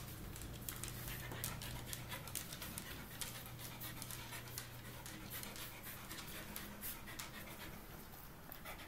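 A dog panting in quick, even breaths.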